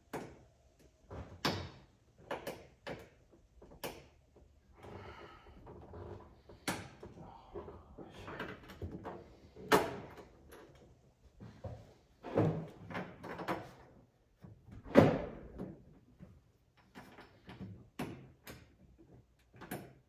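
Irregular knocks, clicks and scrapes of a rear window panel and its mounting hardware being shifted and fitted against a UTV's roll cage, with several louder thumps, the loudest about fifteen seconds in.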